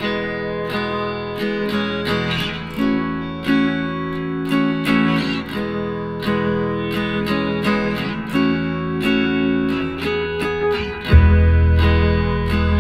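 Background music: a strummed acoustic guitar in a steady rhythm, with a deep bass coming in about eleven seconds in.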